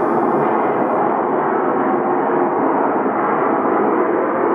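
A loud, steady roar of noise with a faint constant hum in it.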